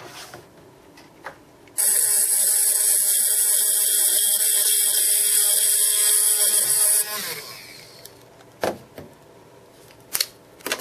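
Small handheld rotary tool running at high speed for about five seconds, its bit cutting into the plastic case of a piezoelectric buzzer, then winding down. A few sharp clicks from handling the opened parts follow near the end.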